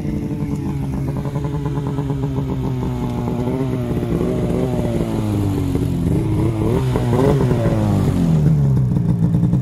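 Snowmobile engine running, its pitch rising and falling with the throttle and wavering most about seven seconds in.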